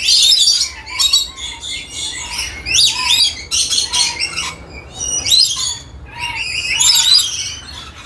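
Lorikeets chattering and screeching: shrill, overlapping calls from several birds in quick, continual bursts.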